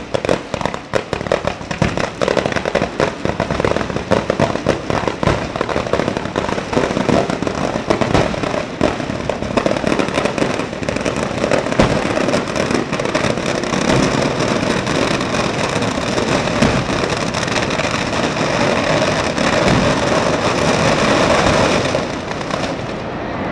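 Barrage of Ligurian mortaletti, small black-powder ground charges, going off in very rapid succession. The bangs come thick and fast at first, then run together into a continuous din that eases slightly near the end.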